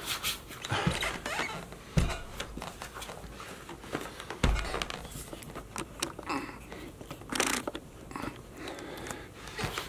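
Rustling, rubbing and scraping of clothing and leather pull-on boots as a person kneels and shifts about on a rug, with a few dull thumps.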